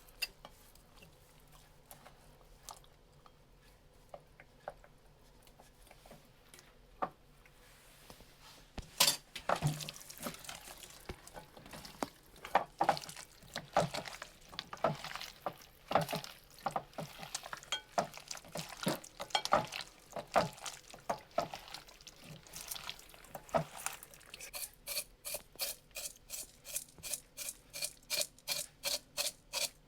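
Food-preparation handling sounds: scattered clicks, then a busy run of knocks and clinks from utensils and dishes about nine seconds in, ending in a steady series of quick strokes about three a second.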